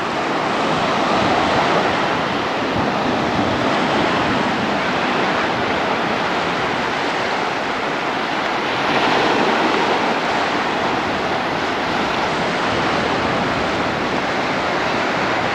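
Steady rushing of wind and waves, a loud even noise that swells a little about nine seconds in.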